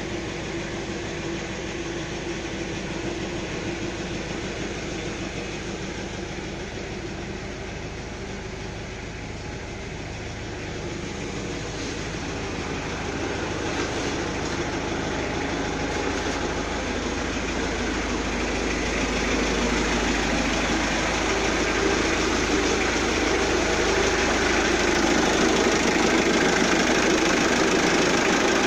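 Hyundai Galloper 2.5 TDI four-cylinder turbodiesel idling steadily at about 1000 rpm. It is first heard from inside the cab, then grows louder and closer in the second half, heard at the engine bay.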